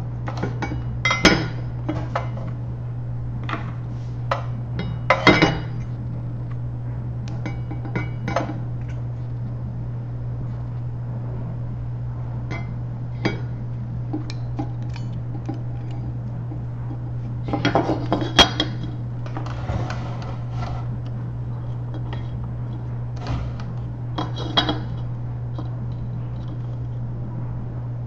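Scattered clinks and short bursts of clatter from small hard objects, like dishes or metal being handled, heard over a steady low hum. The busiest clatter comes about two-thirds of the way through.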